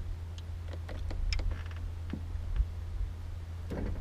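Fishing reel being wound in, giving a scattered run of light clicks and ticks, with a quick rattle of ticks about a second in.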